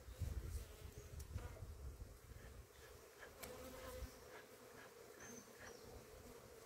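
Italian honeybees buzzing around an open hive, a faint steady hum, with a few light clicks.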